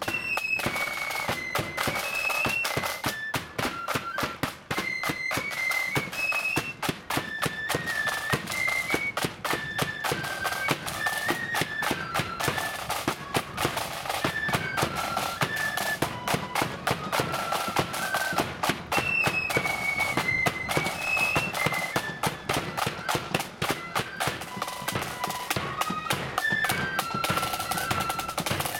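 Marching flute band playing a tune: a high flute melody over continuous snare drum and bass drum beats.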